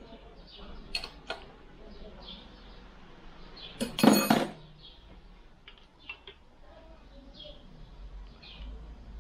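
Wrench and socket clinking on the engine's crankshaft bearing-cap bolts as they are tightened: a few light clicks early, then one loud metallic clank with a short ring about four seconds in, and a few fainter clicks after it.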